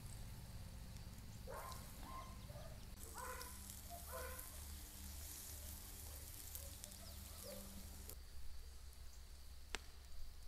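Outdoor ambience with a few short bird chirps in the first few seconds and a faint high hiss through the middle, ending with a single sharp click.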